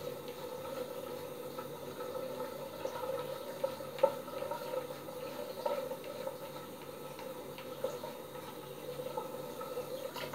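Three-bladed cartridge razor scraping through long head stubble in short strokes, over a steady hum in a small tiled bathroom; a sharp click about four seconds in is the loudest moment.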